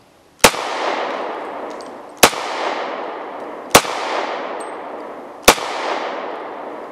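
Four pistol shots from a semi-automatic handgun, fired one at a time about a second and a half to two seconds apart, each with a long echo dying away before the next.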